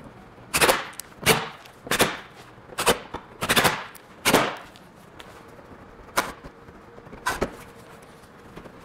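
Short rattling bursts from an air impact wrench running bolts during reassembly: six quick bursts under a second apart, then two fainter ones near the end.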